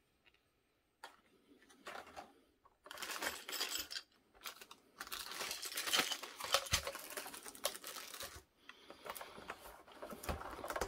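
Plastic bags of small accessory parts crinkling and rustling as they are handled and set down on a table, with light clicks of the hard parts inside. It starts about three seconds in and dies down near the end.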